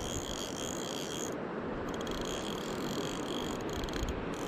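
Fly reel's click-and-pawl ratchet running in a rapid high buzz, steady for about a second and then in broken spurts, as line moves on the reel while a trout is being played to the net. Under it the steady rush of river water.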